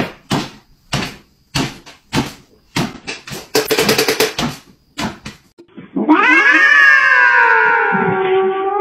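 A run of short, sharp sounds, about two a second, from an excited dog hopping on its hind legs while it waits for food. Then, about six seconds in, a calico cat lets out one long, loud yowl that slowly falls in pitch.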